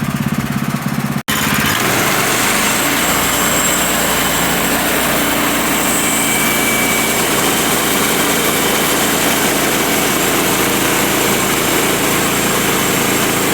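Portable sawmill's engine running steadily under load as the blade cuts through a large pine log, with the hiss of the cut over the engine. The sound drops out for an instant about a second in, then carries on unchanged.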